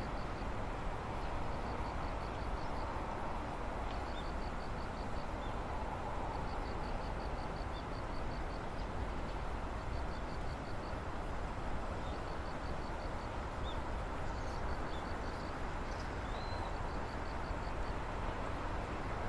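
Insects chirping in runs of rapid, evenly spaced pulses, with a few short faint bird chirps, over a steady low background rumble.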